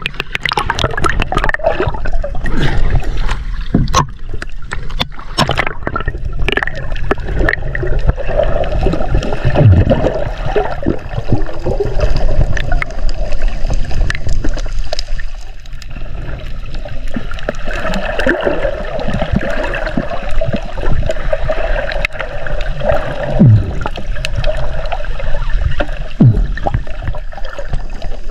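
Seawater sloshing and gurgling around a camera held at and under the surface, heard muffled, with a steady low rumble and scattered clicks.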